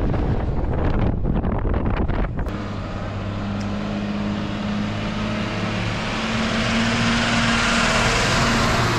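Wind and road noise inside a moving car for the first couple of seconds. Then an army truck's diesel engine runs steadily as the truck drives slowly past, growing louder toward the end.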